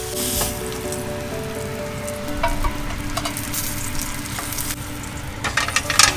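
Oil and rendered fat sizzling in a hot stovetop grill pan after searing a rib eye steak. Metal tongs click and scrape against the pans a few times, in a louder cluster near the end.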